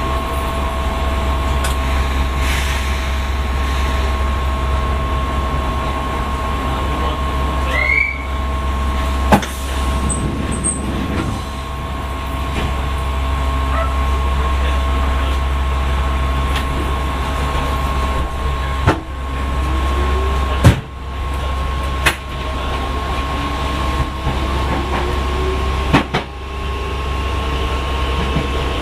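Inside a Yokohama Municipal Subway 1000 series car: a steady equipment hum over a low rumble, broken by a few sharp clunks. About two-thirds of the way through, a motor whine starts and keeps rising in pitch as the train pulls away and gathers speed.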